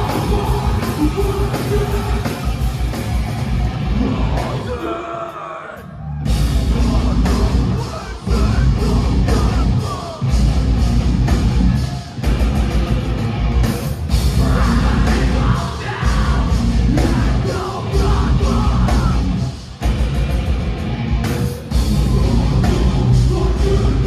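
Live heavy metal band playing: distorted electric guitars, bass and drums with shouted vocals. About five seconds in the music briefly drops away, then comes back hard in a stop-start section with several short gaps.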